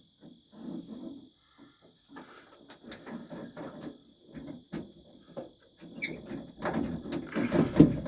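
Irregular clicks, knocks and scraping of a 1957 Ford F100's door latch parts being worked into place inside the steel door, getting louder and busier near the end. A steady cricket chirr runs underneath.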